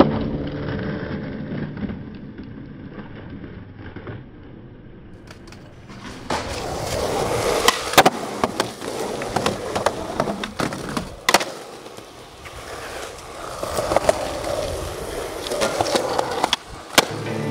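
Skateboard wheels rolling on pavement and on wooden bench ledges, duller and quieter for the first few seconds. About six seconds in the sound turns louder, with several sharp clacks as boards are popped and land.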